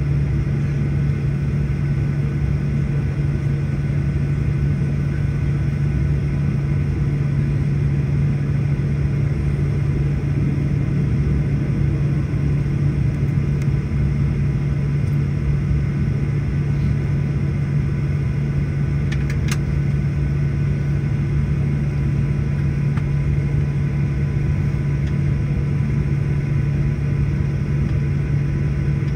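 Steady low drone inside an airliner cabin, with the jet engines idling and the air system running while the plane stands still on the taxiway. A faint click about two-thirds of the way through.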